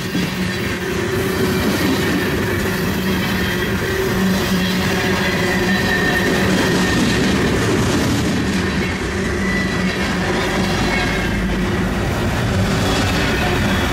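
Long CN freight train rolling past, its cars' steel wheels clattering steadily over the rail, with a thin high squeal of wheel flanges rising at times.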